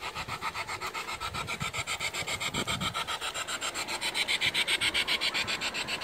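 G-scale garden railway train running along the track, making a rapid, even rasping rhythm of about nine beats a second that grows louder as it comes closer.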